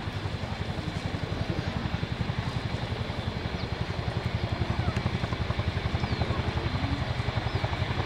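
RAF Chinook tandem-rotor helicopter hovering with a military vehicle slung beneath it, its rotor blades beating in a fast, even pulse of about eleven beats a second. The beat grows a little louder in the second half.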